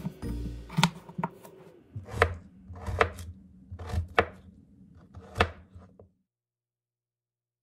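A series of sharp knocks, about six of them at uneven intervals roughly a second apart, over a low hum. The sound cuts off suddenly about six seconds in.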